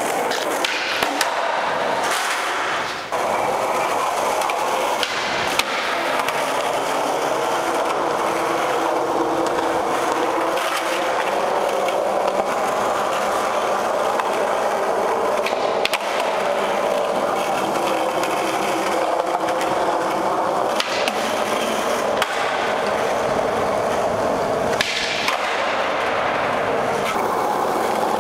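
Skateboard wheels rolling steadily over smooth concrete, with a few brief clacks of the board.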